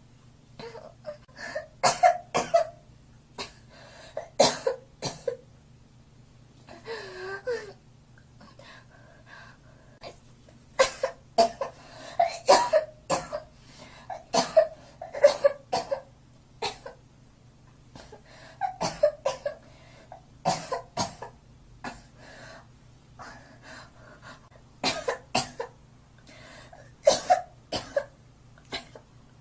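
A girl coughing in short fits of two or three coughs, a fresh fit every few seconds.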